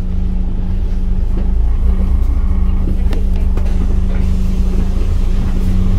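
Scania K310UD double-decker bus's five-cylinder diesel engine running at a steady pitch, with a few faint clicks and rattles.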